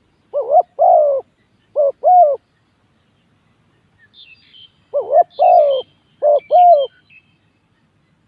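Spotted dove cooing: two four-note phrases a few seconds apart, each note short-long-short-long. Faint high chirps of a small bird come in near the end.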